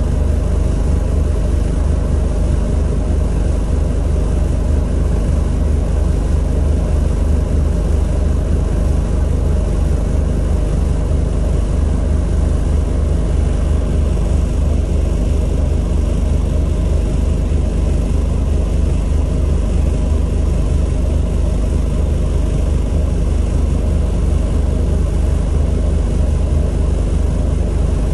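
Scania Citywide articulated bus's engine idling while the bus stands, heard inside the passenger cabin as a steady low hum.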